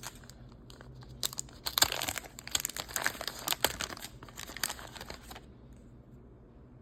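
Waxed-paper wrapper of a 1990 Topps football card pack being torn open and crinkled by hand. A few light clicks come first, then a dense spell of crackling tearing through the middle, which stops about a second and a half before the end.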